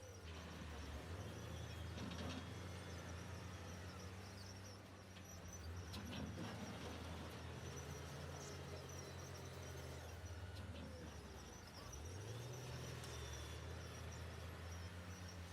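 Diesel engine of heavy earthmoving machinery running, its pitch stepping up and down as the machine works, with a few short clanks about two and six seconds in.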